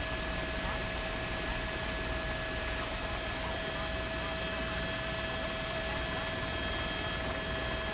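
Steady hiss with a faint electrical hum and a few constant high whining tones, without any distinct event.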